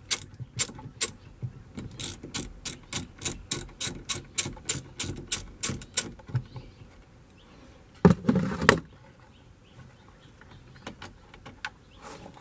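Hand ratchet with a 10 mm socket clicking steadily, about four clicks a second, as the top bolt of a tow mirror is backed out; the clicking stops about six seconds in. A short loud noise follows about eight seconds in.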